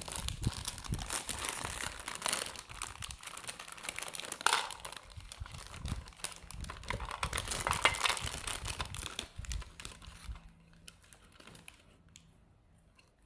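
A thin clear plastic bag of hair ties crinkles and rustles in irregular bursts as small hands rummage through it. The rustling dies down over the last few seconds.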